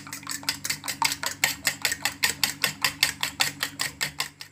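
Raw eggs being beaten by hand in a stainless steel bowl: a utensil clicks rapidly against the metal bowl in an even rhythm, about six or seven strokes a second.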